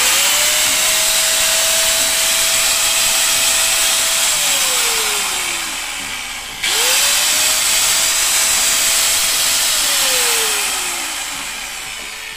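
Doliz BA730 720-watt electric angle grinder, no disc fitted, switched on twice and run free. Each time the motor whines up quickly to a steady high pitch and holds for a few seconds. It then winds down in falling pitch after the switch is released, the second time near the end.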